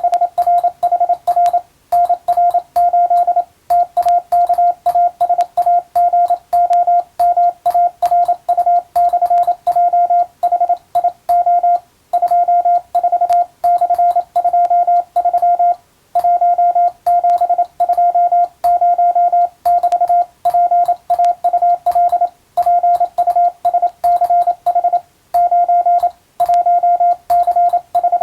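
Morse code (CW) sent as a single pure tone of about 700 Hz, keyed rapidly into dots and dashes. It comes in bursts of characters with short pauses between groups. A faint click sounds at the keying edges.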